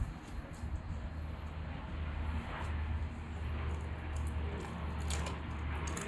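A German shepherd eating, with wet chewing and licking and a few sharp clicks of teeth or bowl, over a steady low rumble.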